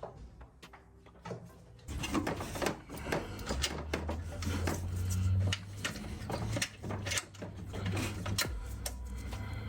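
Hand-tool work in a truck's engine bay: irregular metallic clicks, knocks and clatter, getting busier and joined by a low rumble about two seconds in.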